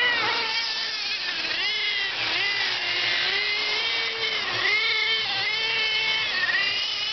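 Electric motors of Traxxas Slash 4x4 radio-controlled short-course trucks whining as they race, the pitch swooping up and down over and over as the cars accelerate and slow for the corners.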